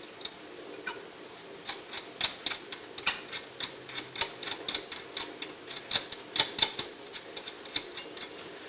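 Irregular light clicks and ticks, roughly two to four a second, as wheel nuts are run onto the wheel studs to hold the brake rotor in place.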